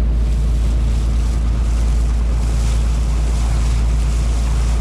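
Steady heavy wind rumble on the microphone, over an even hiss of water moving past.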